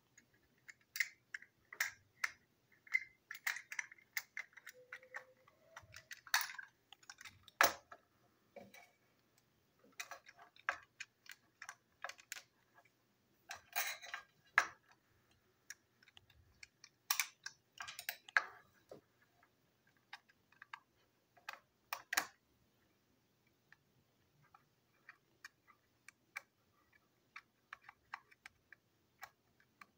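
Small hard clicks and taps of toy engine parts being fitted together and set down on a desk, in irregular clusters that thin out over the last third.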